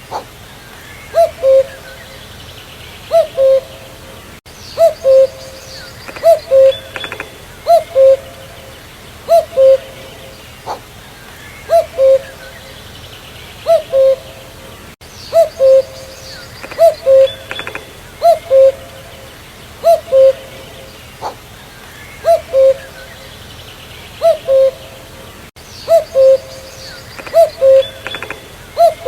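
A common cuckoo repeatedly calling its two-note 'cuck-oo', a higher note dropping to a lower one, about once every one and a half to two seconds. Faint chirps from other birds sound underneath.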